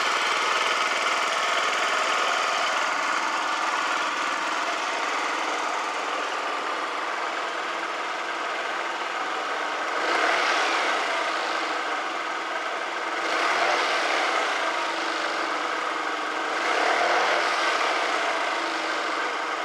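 Yamaha Vino 4st scooter's small four-stroke single-cylinder engine idling steadily, getting briefly louder three times in the second half.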